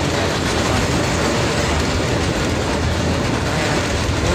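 Moving passenger train heard from inside a carriage: steady noise of wheels running on the rails.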